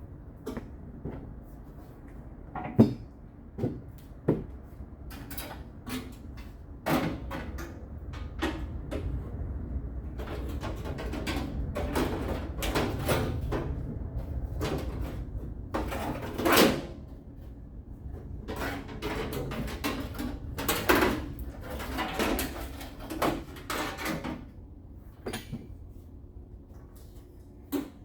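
Irregular knocks, clunks and rattles of things being handled and moved, with a few sharper bangs, over a low steady hum.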